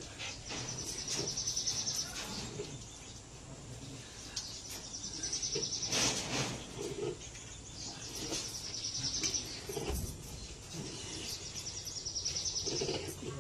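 A bird's high trilling call, repeated four times about every three to four seconds, each trill a second and a half to two seconds long. A couple of dull knocks come about halfway through, over a steady outdoor background.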